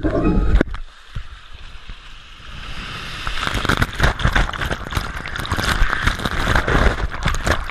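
Water slide ride heard from a body-held GoPro: water rushing and splashing over the camera as the rider slides down. It is quieter for a couple of seconds after a brief loud burst at the start, then from about three seconds in turns into dense, loud, spattering splashing.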